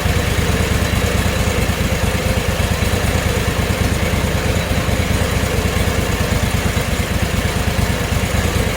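Small gasoline engine of a portable band sawmill idling steadily, left running so it can cool down after cutting.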